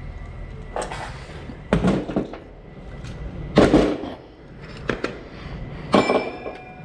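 Metal door-lock hardware being handled during removal from a door: four sharp clunks and knocks, the last one ringing briefly like a metal part.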